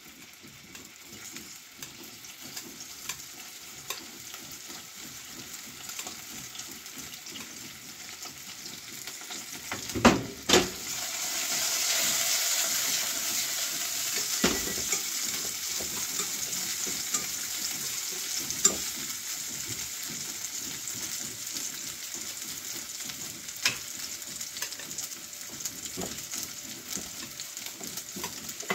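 Cut carrot pieces frying and being stirred in a frying pan on a gas stove, a steady sizzle. About ten seconds in, two sharp knocks are followed by a sudden swell in the sizzling, which then slowly settles, with occasional clicks of the utensils on the pan.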